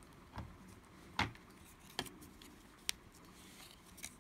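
About five faint, sharp clicks and taps from hands and small tools handling an opened iPhone 5 as its new battery is seated, the loudest about a second in.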